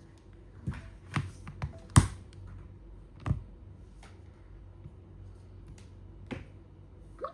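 Phone being handled between calls: scattered light taps and clicks, about nine in all, the loudest about two seconds in.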